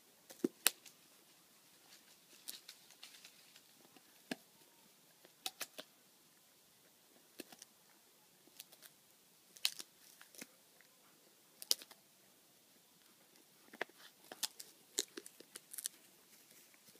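A golden retriever chewing a wooden stick: irregular sharp cracks and snaps of wood splintering between its teeth, single or in short clusters every second or two.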